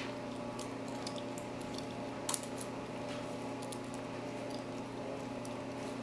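Lock picks working the pins of a multi-pin lock: sparse small metallic clicks and scrapes, one sharper click a little past two seconds in, over a steady low electrical hum.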